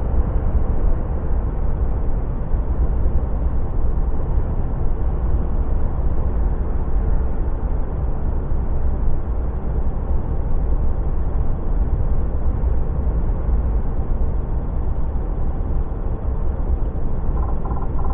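Steady low rumble inside a DAF lorry's cab at motorway speed: engine and road noise.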